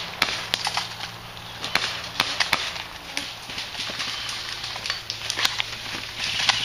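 Irregular sharp cracks and snaps, some in quick clusters, over a rustle of leafy undergrowth.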